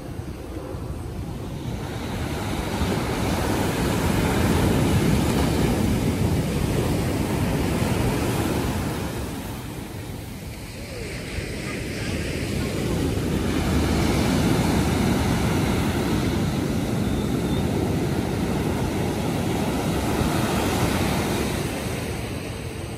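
Ocean surf breaking and washing up a sandy beach, a steady rush that swells louder twice and eases off in between.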